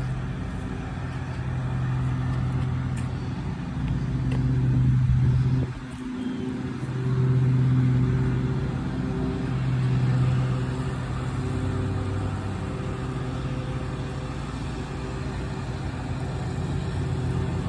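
Motor vehicle engine running, a steady low hum that swells and fades several times.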